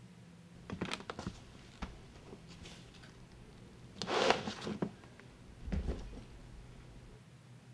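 A hard-shell suitcase being handled on a quilted bed: a few light clicks and knocks, a louder rustling scrape about four seconds in, then a dull thump with clicks as the latches are worked, over a faint steady low hum.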